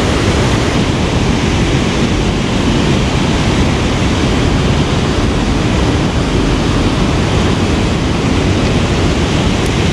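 Loud, steady rushing of water, an even roar with no break, typical of flowing water at a dam.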